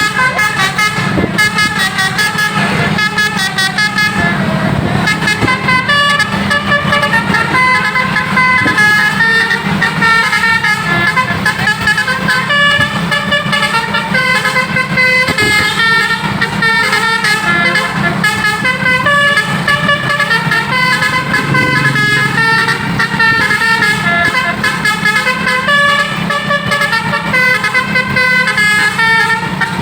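Basuri 'telolet' multi-trumpet bus air horn playing a melody of quickly changing notes, over the steady low hum of the bus's engine.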